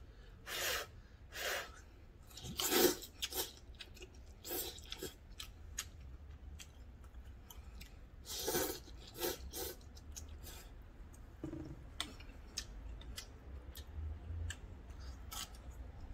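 Ramyeon noodles slurped from a pot in a series of short pulls through the first ten seconds, followed by chewing with small clicks.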